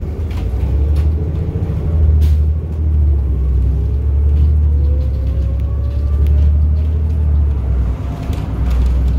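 Inside a Grande West Vicinity city bus under way: its Cummins ISB 6.7 L diesel drones steadily while a faint whine rises slowly in pitch as the bus gains speed, with scattered light rattles from the cabin.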